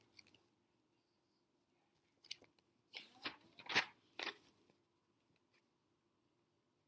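A picture book's page being turned: a few short paper rustles and crinkles about two to four and a half seconds in.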